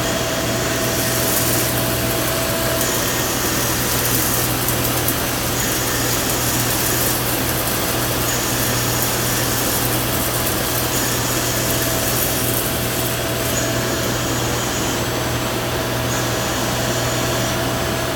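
Yang CNC lathe turning bar stock dry: the spindle and drives run with a steady hum, and a high cutting hiss comes and goes about every two and a half seconds as the tool makes repeated turning passes.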